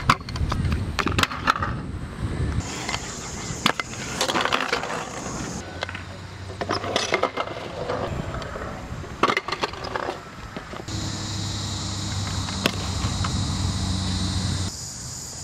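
Stunt scooter wheels rolling on concrete, broken by sharp clacks and smacks as the scooter deck and the rider hit the ground in falls.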